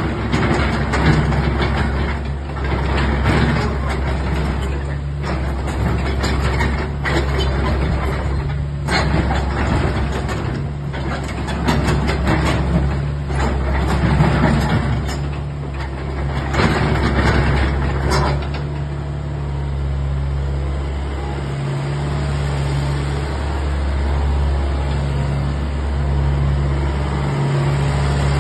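Hitachi ZX70 mini excavator's diesel engine running under load while the boom and bucket are raised and the upper structure swings. Irregular bursts of noise sit over the steady engine note for roughly the first two-thirds, then the sound evens out.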